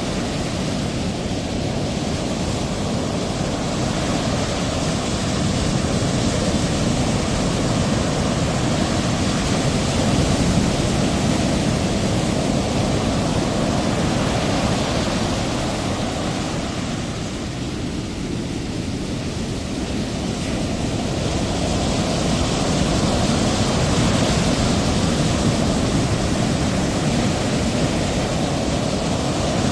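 Ocean surf: a steady rushing wash of breaking waves that swells and eases slowly, dipping for a few seconds in the middle.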